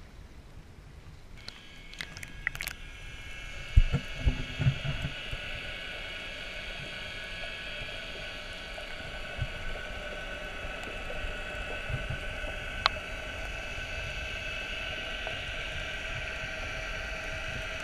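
Underwater recording: a steady machine hum of several high tones held together, carried through the water. It starts a second or two in, and a few dull knocks come through around four seconds in.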